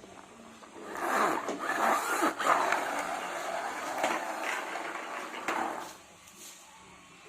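Plastic toy car pushed along a surface, its wheels and body making a rolling, scraping rattle for about five seconds before it drops away.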